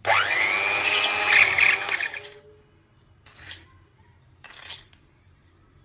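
An electric hand mixer starts up with a rising motor whine, runs steadily for about two seconds with its beaters in thick hung yogurt and powdered sugar, then switches off. Later come two short, faint scrapes of a spoon in a bowl of powdered sugar.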